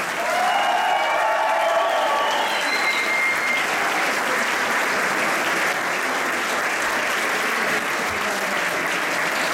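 Audience applauding steadily, with a few voices calling out over the first few seconds.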